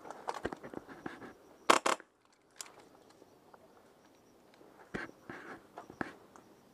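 Rustling and clicking of clothing and gear as an airsoft player shifts position with his rifle. Two loud sharp cracks come close together a little under two seconds in, and more clicks follow about five and six seconds in.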